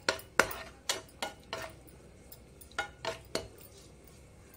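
Metal spoon clinking and scraping against a cooking pan while stirring raisins frying in it: a quick run of knocks in the first second and a half, a pause, then three more around three seconds in.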